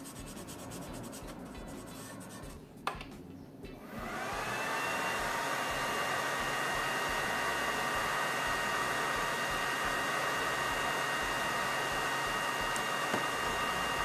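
A felt-tip marker rubbing over a metal plate, then a click; about four seconds in, the xTool D1 Pro laser module's cooling fan spins up and runs with a steady whoosh and a whine while the head engraves.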